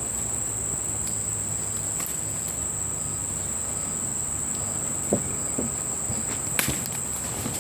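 Crickets chirring in one steady, continuous high-pitched drone, with a couple of light knocks near the end.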